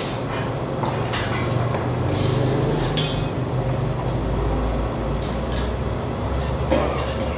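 Steel-drum lid-cutting machine running: a steady low motor hum, with intermittent metallic scraping and knocks as it works the drum lid.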